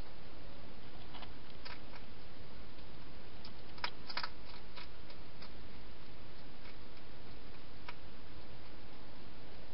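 Wild hedgehog eating at a feeding bowl: irregular sharp crunches and clicks of chewing, thickest in the first half, over a steady background hiss.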